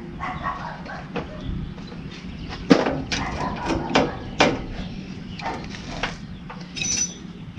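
Scattered knocks and clicks of hands working a rubber fan belt against the generator pulley and metal parts of a tractor engine, the belt too tight to go over the pulley. The loudest knock comes a little under three seconds in.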